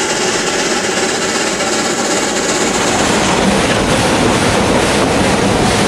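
Narrow-gauge steam locomotive and train running, a steady dense hissing rumble; the sound shifts about three seconds in, with more low rumble after.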